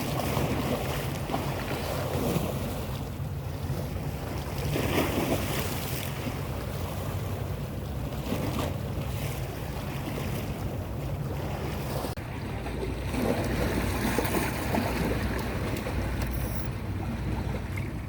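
Boat engine running steadily, with water splashing and wind buffeting the microphone.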